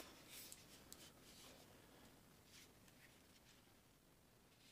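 Near silence with a few faint rustles and light taps as a hand handles a fabric-covered portable Bluetooth speaker.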